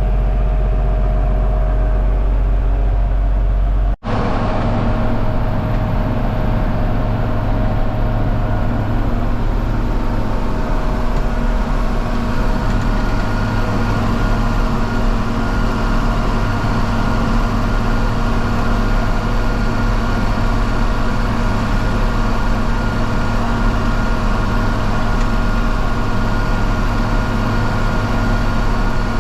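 John Deere 4230 tractor's diesel engine running steadily while pulling a round baler through hay. About four seconds in, the sound cuts out for an instant and resumes with a different, busier machine noise.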